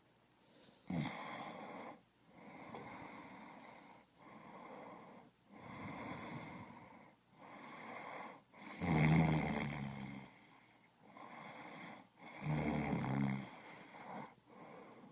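Human breathing, heard close: a regular run of heavy breaths, each lasting about a second and a half with brief pauses between. Two of them, past the middle and near the end, are louder and have a snoring buzz.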